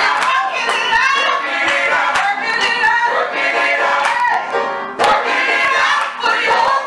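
Small gospel choir singing together, mostly women's voices.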